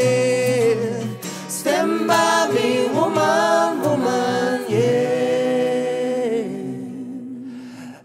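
Several voices singing long held notes in harmony, sliding between pitches, the singing dying down near the end.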